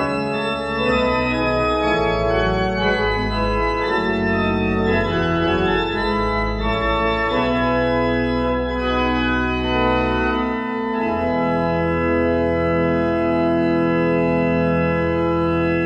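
Organ music: slow sustained chords over a moving bass line, ending on one long held chord over the last few seconds.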